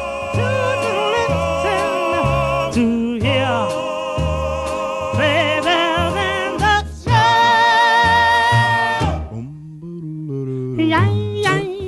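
A small group of men and women singing together in harmony, holding long notes with vibrato. The higher voices drop out for about a second near the end while lower voices carry on.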